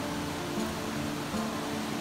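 Background music with sustained notes that change every half second or so.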